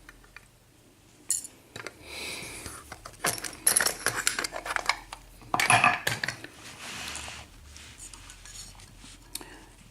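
Small metal tools and a euro cylinder lock being handled, clinking and rattling in several short, irregular bursts of clatter.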